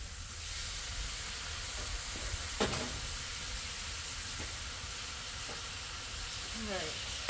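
Diced tomatoes and hamburger sizzling on a hot Blackstone flat-top griddle: a steady frying hiss, with one sharp clack about two and a half seconds in.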